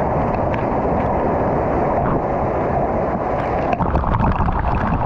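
Waterfall pouring into a pool right beside the camera: a steady rush of falling water, with sharper splashing of droplets from about four seconds in.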